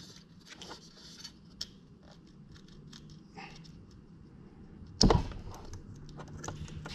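Faint clicks and rattles of speaker wire connectors being wiggled off the terminals of an old motorcycle fairing speaker, then a single sharp knock about five seconds in.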